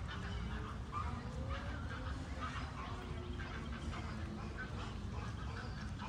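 A group of waterfowl at a lake calling, with many short calls overlapping throughout, over a steady low rumble.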